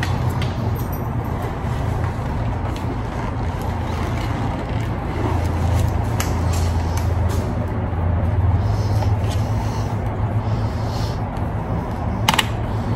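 A vehicle engine running steadily with a low, even rumble. Over it come small clicks and rustles as a full-face motorcycle helmet is pulled on and adjusted, with one sharp click near the end.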